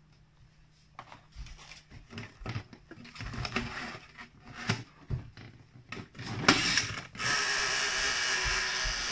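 Objects knocking, clicking and rustling as hands rummage inside a box, with one sharper knock near the end. Then, about seven seconds in, a steady loud hiss starts and keeps going.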